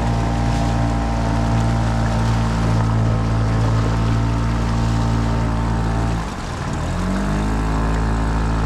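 Small outboard motor on a fishing kayak running steadily under load, pushing upstream against the current. About six seconds in, the engine note dips briefly, then climbs back up to a steady run.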